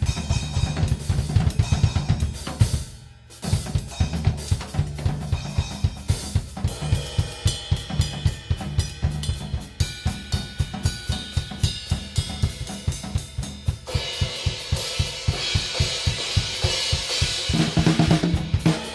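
Drum kit with double hi-hats, three crash cymbals and a splash, played in a fast, busy groove of bass drum, snare and cymbals. The beat stops briefly about three seconds in, and later the cymbals wash louder for a few seconds.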